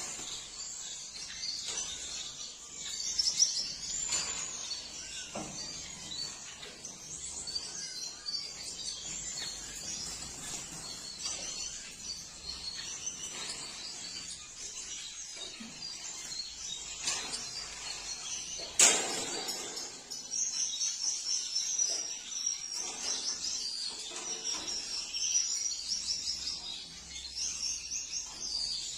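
Gouldian finches chirping and calling, many short high notes and quick rattling strings overlapping throughout. A single sharp click stands out about two-thirds of the way through.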